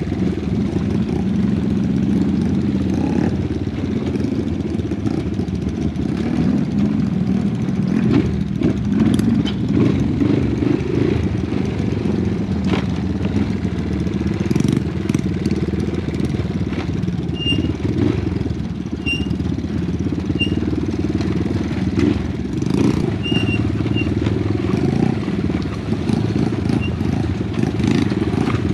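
Honda Wave 125 motorcycle's single-cylinder four-stroke engine running under way on a rough dirt trail, its note rising and easing with the throttle, with scattered knocks and rattles.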